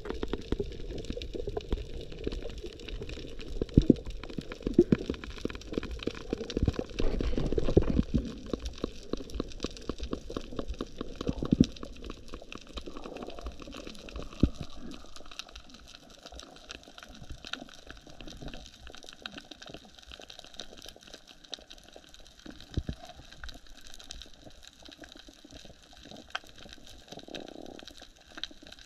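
Underwater sound through an action camera's housing while diving over a coral reef: heavy water rushing for the first twelve seconds or so, then quieter, with a steady crackle of sharp clicks throughout.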